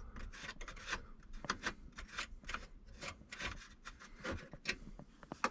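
Irregular light clicks, taps and rubbing as hands and a hand tool work at a car's dashboard around the factory radio.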